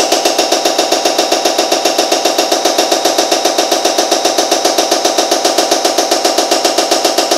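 Caterpillar 3406E electronic unit injector being cycled on a cam-driven EUI test bench at its startup speed: a loud, fast, even mechanical clatter of plunger strokes that holds steady throughout.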